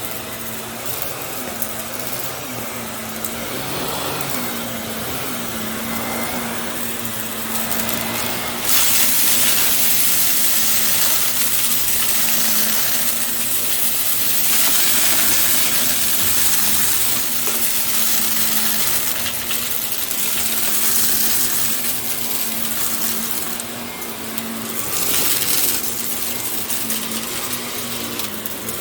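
Bissell compact vacuum cleaner running, a steady motor hum under a rush of suction air. About nine seconds in the rushing gets louder and brighter, then eases back near the end.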